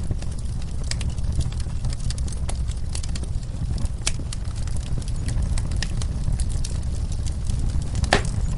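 Wood fire in a fireplace crackling: scattered sharp pops and snaps over a steady low rumble, the loudest pop near the end.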